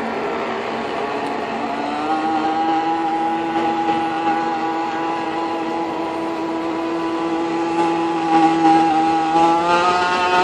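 Radio-controlled speedboat's motor running at high revs as a steady, high buzz, its pitch rising near the end.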